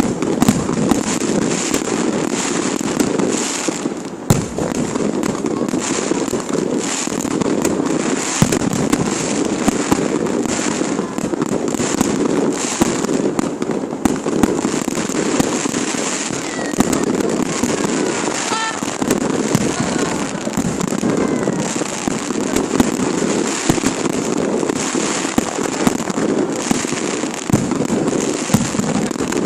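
Fireworks display: a continuous barrage of shell bursts and crackling, with a few sharper single bangs standing out.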